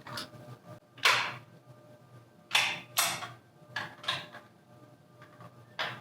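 About six sharp knocks and clacks of parts and tools being handled during piston installation in a big-block engine, the loudest about a second in, with a faint steady hum underneath.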